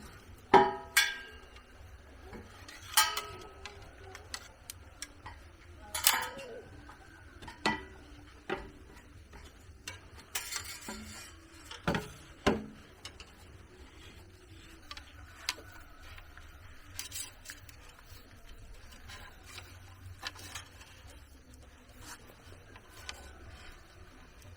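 Hard objects knocking and clinking at irregular intervals, a dozen or so sharp strikes, several ringing briefly, with the loudest near the start and the rest growing fainter and sparser.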